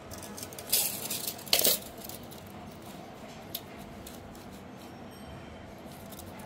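Coarse jute burlap and a tape measure being handled: two loud, short scraping rustles about a second in, then a small click, over a steady background hum.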